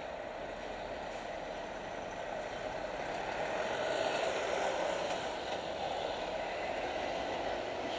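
Road traffic at a junction, led by an articulated lorry's diesel engine as it pulls away. The steady noise swells a little around the middle.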